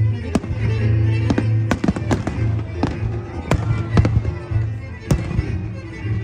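Fireworks shells bursting in a quick irregular series of sharp bangs, about a dozen, over loud show music with a pulsing bass.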